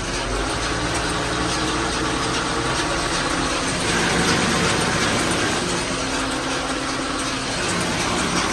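John Deere tractor engine running steadily with the round baler, growing a little louder and noisier about four seconds in.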